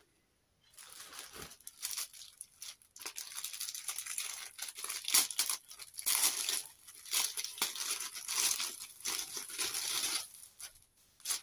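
Plastic packaging around a bundle of fabric crinkling and crackling as it is handled and opened by hand, in an irregular run of rustles from about a second in until near the end.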